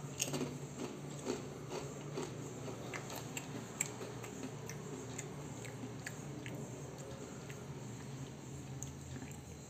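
A person biting and chewing crunchy ridged potato chips, with irregular crisp crunches that grow sparser toward the end.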